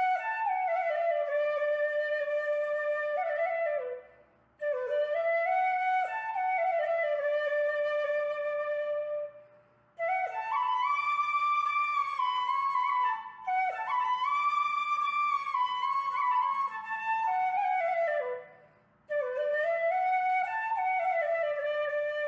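Background flute music: a single melodic line played in phrases of several seconds, with short pauses between them.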